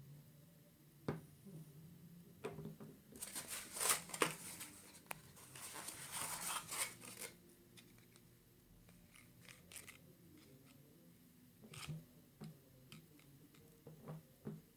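Rustling of packaging with scattered small clicks and taps as an electric toothbrush and its box contents are handled; the rustling is heaviest in a stretch of a few seconds near the middle.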